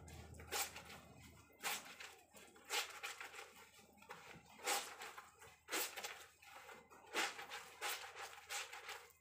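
Wet cloth being scrubbed and squeezed by hand over a plastic drum of water: squelching, splashing swishes about once a second.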